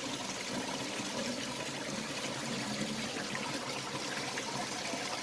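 Water trickling and running steadily in a live fish tank.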